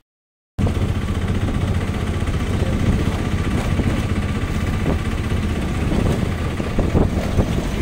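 Steady low rumble of a heavy vehicle's diesel engine running, with a faint steady whine above it, cutting in sharply after a brief silence at the start.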